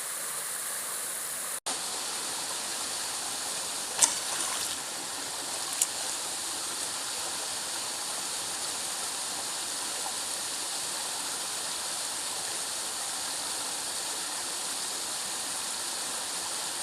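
Small woodland waterfall pouring steadily into a pool. The sound cuts out for an instant about a second and a half in, and two sharp knocks come at about four and six seconds.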